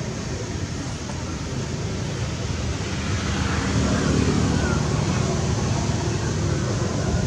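Steady low rumble and hiss of outdoor background noise, a little louder from about three seconds in.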